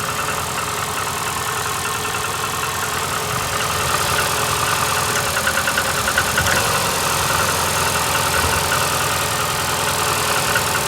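Car engine idling cold and running rough, with a fast, even ticking knock over the idle. The owner says it misfires when cold and that something is knocking, and does not know the cause.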